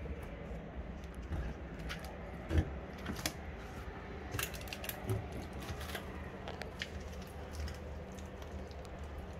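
Scattered small clicks and knocks with one dull thump about two and a half seconds in, over a low steady rumble: the sounds of someone climbing down through a hatch into a derelict boat's hull.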